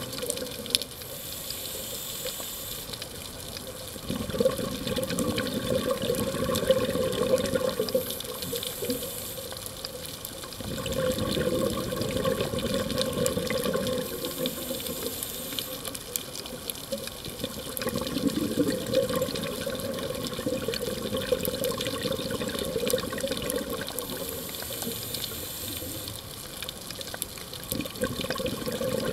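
Scuba diver breathing through a regulator underwater, about four breath cycles: a short high hiss as each breath is drawn, then a longer rush of exhaled bubbles.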